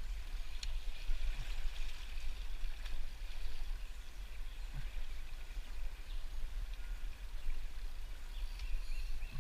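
Fast river current rushing past rocks, a steady watery hiss, over a constant low rumble.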